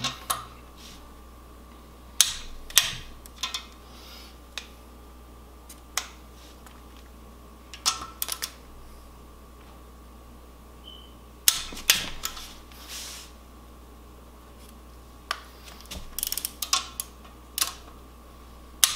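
Ratchet and socket clicking and clinking as bolts on an aluminium engine bedplate are tightened with a torque wrench, in short irregular clusters of sharp clicks. One short high beep sounds about eleven seconds in.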